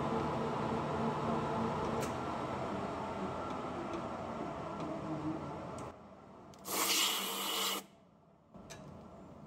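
Metal lathe running with a steady hum while a boring tool machines the bore of a steel gear. About six seconds in the hum drops away sharply, and a second later comes a loud hiss lasting about a second.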